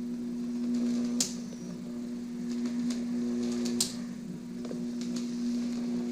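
Sound effect of a Frankenstein's monster being brought to life: a steady electrical hum of lab machinery, broken by two sharp electric zaps.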